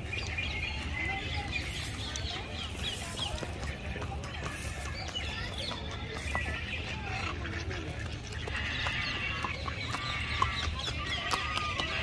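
Birds in an aviary calling and chirping, many short calls overlapping all through.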